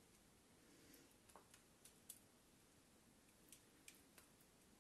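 Near silence, with a few faint, scattered clicks of a metal spoon scooping sauce from a china bowl and spreading it onto fish.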